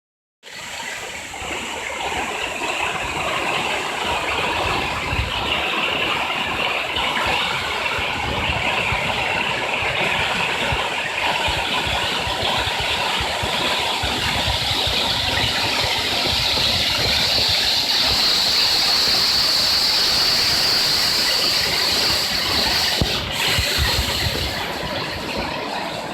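Waterfall dropping about 15 metres, a steady, loud rushing of falling water that grows slightly brighter and louder partway through.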